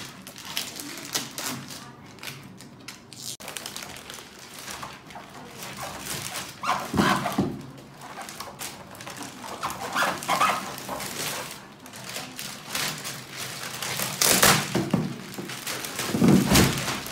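Thick plastic wrapping crinkling and rustling as it is cut and pulled off a rolled, compressed spring mattress. There are louder crackling rustles and dull thumps at intervals as the roll is handled.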